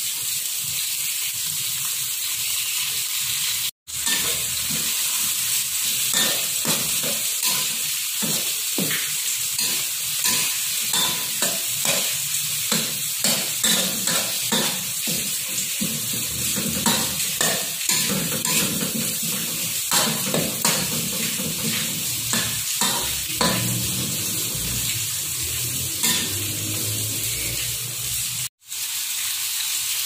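Pork sizzling in hot oil with garlic and chilli in a metal wok, stirred with a metal spatula. Through the middle stretch the spatula scrapes and knocks against the wok roughly twice a second over the steady sizzle.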